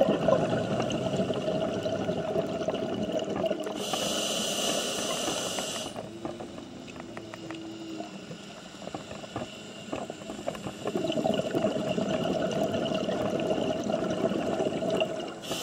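Underwater sound of a scuba diver's regulator: exhaled bubbles burbling, in two long stretches with a quieter spell in the middle.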